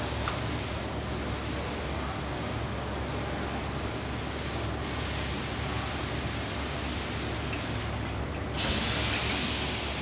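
Steady hiss and low hum of factory machinery, with the hiss briefly louder for about a second near the end.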